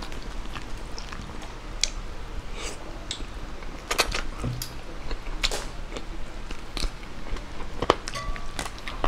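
Close-miked eating by hand: wet chewing and mouth clicks, with fingers tearing braised chicken adobo and picking food from the plate. Scattered sharp smacks, a few louder ones partway through and near the end.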